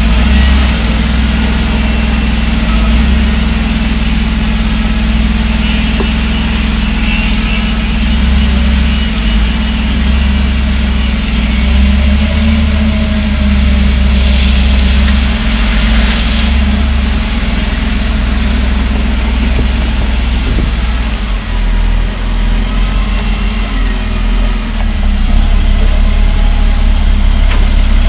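Volvo L70F wheel loader's six-cylinder diesel engine running loud and close, its pitch rising and falling as it is revved up and down. It grows louder near the end as the loader comes up close.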